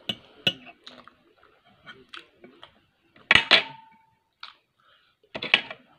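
Eating noises from a steak dinner: chewing, and a steel knife and fork scraping and clicking on a ceramic plate. A louder double clink a little over three seconds in rings briefly, and another cluster of clatter comes near the end.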